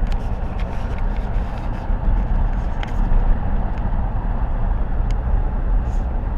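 Wind buffeting the microphone: a steady low rumble with a few faint ticks.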